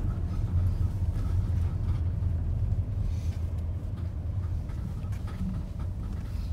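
Steady low rumble of a moving motor vehicle's engine and tyres, heard from inside the cabin while driving on a snow-covered road.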